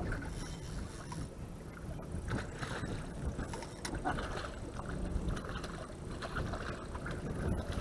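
Wind buffeting the microphone over water lapping against a small fishing boat's hull, with a few light clicks and knocks of handling.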